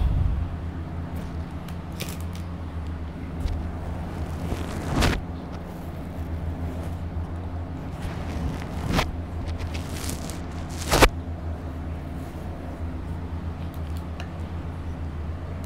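Steady low background hum with a few scattered knocks, the loudest about eleven seconds in.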